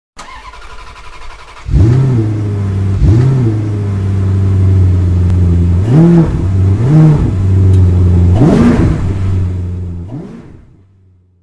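Car engine catching about a couple of seconds in and idling, blipped five times with quick rises and falls in pitch, then fading out.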